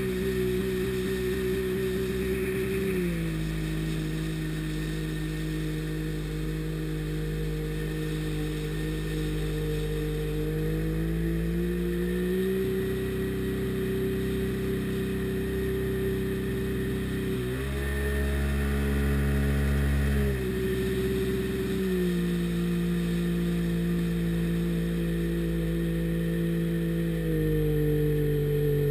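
Sea Ray Sea Rayder jet boat's two-stroke engine running under way. Its pitch drops and climbs again several times as the throttle is eased off and opened back up.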